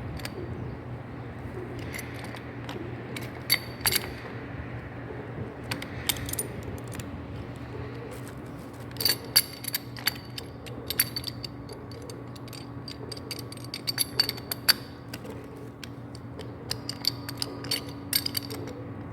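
Irregular metallic clinks and taps of a wrench and pipe fittings being handled during float-valve pipe fitting, coming in scattered clusters with a short high ring, over a steady low hum.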